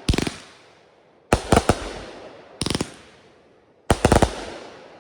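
Consumer fireworks going off: four quick clusters of sharp bangs, about one every 1.3 seconds, each fading away in a long echo.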